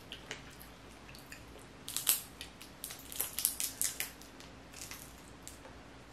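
Boiled crawfish shell cracking and snapping as it is peeled by hand, a string of sharp crackles, busiest about two seconds in and again around three to four seconds.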